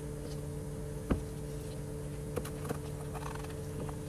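Kitchen knife knocking on a cutting board as jalapeños are cut: one sharp knock about a second in, then a few lighter taps, over a steady low hum.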